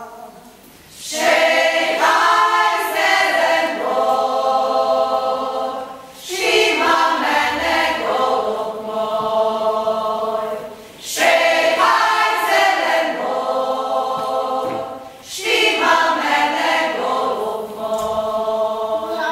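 A group of voices singing a song unaccompanied, in four long phrases of about four to five seconds each with brief pauses between them.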